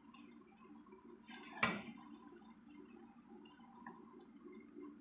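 Wooden spatula stirring and tossing noodles in a granite-coated wok: soft scraping and light clicks, with one sharper knock of the spatula against the pan about a second and a half in.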